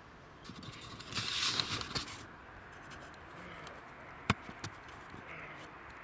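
Rustling and scraping of clothing and camera handling, loudest for about a second near the start, then a sharp click a little past the middle and a fainter one just after.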